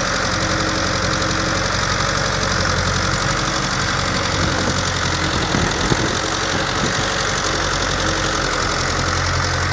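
Ursus 912 tractor's diesel engine running steadily, with a short cluster of knocks about six seconds in.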